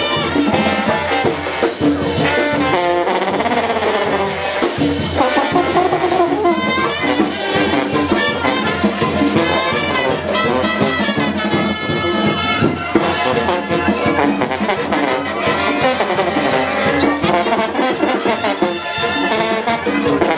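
Brass band music: trumpets and trombones playing over a steady drum beat.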